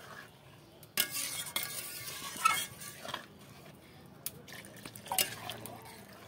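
A long metal spatula stirring a thin, watery spinach gravy in an aluminium kadai, scraping and clinking against the pan. The stirring is loudest between about one and three seconds in, with scattered knocks of metal on metal.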